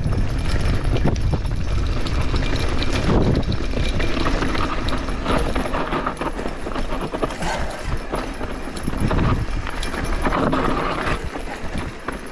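Mountain bike rolling fast down a rough dirt singletrack: tyres crunching over the ground and the bike clattering over bumps, over a steady low rumble.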